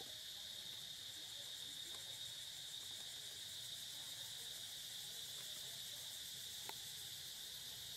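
Steady insect chorus: a constant shrill drone at one pitch that does not let up, with a faint single click near the end.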